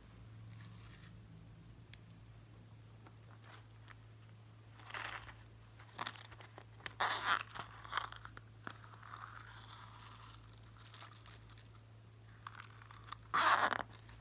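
Hands working glossy slime, making irregular crunching and crackling bursts, the loudest near the end, over a steady low hum.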